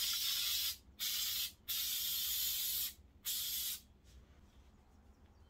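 Aerosol can of foam-and-fabric web spray adhesive hissing in four short bursts as it is sprayed onto upholstery foam, the last ending a little before the four-second mark.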